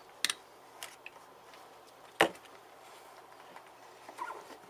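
A few sharp clicks and taps of soldering tools being handled, the loudest about two seconds in.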